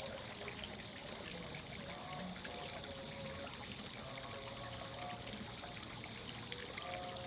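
Steady running water, pouring and trickling, with soft sustained musical tones drifting in and out over it.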